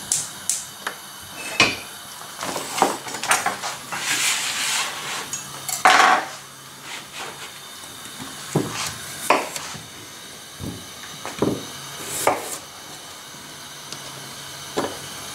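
Scattered knocks and clatter of kitchen utensils: a frying pan on a gas hob, then a knife and a carrot handled on a cutting board. The loudest clatter comes about six seconds in.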